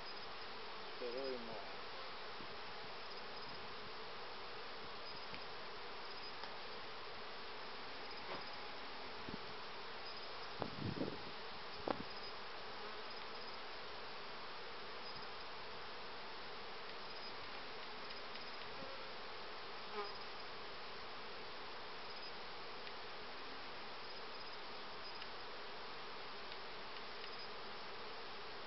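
Steady hum of a honeybee colony from an open hive, with a few short knocks a little before halfway through.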